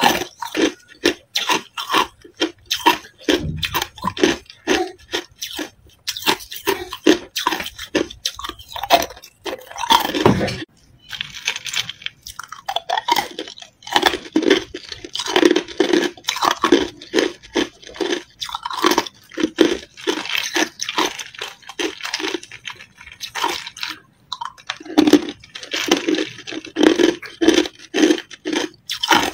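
Ice cubes being bitten and chewed, a fast run of sharp crunches, several a second, broken by brief pauses about ten seconds in and again near the end.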